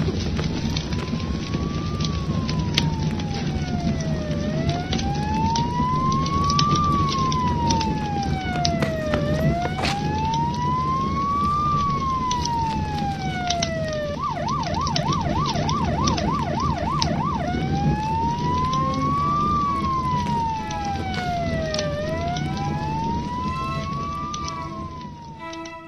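Emergency vehicle siren wailing, rising and falling slowly about once every five seconds. Midway it switches to a fast yelp for about three seconds, then goes back to the slow wail. A steady low rush of noise runs underneath, and everything fades out right at the end.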